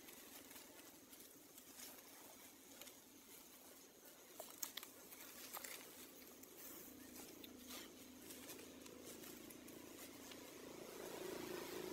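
Near silence: faint outdoor ambience with a few soft ticks, the clearest about four and a half seconds in.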